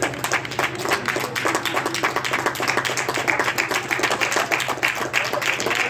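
A crowd clapping: many irregular claps with faint voices underneath.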